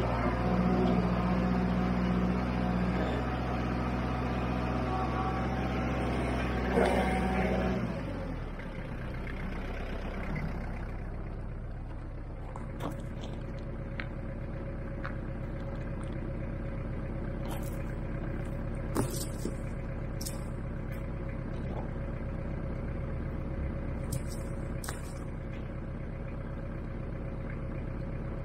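Kubota diesel tractor engine running under load while pulling a land leveler through asphalt millings, with a clunk at about seven seconds. About eight seconds in it drops to a quieter steady idle, with scattered clicks and crunches of asphalt chunks being picked up off the gravel.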